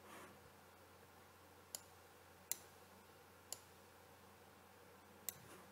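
Near silence with four soft computer mouse clicks, spread a second or so apart.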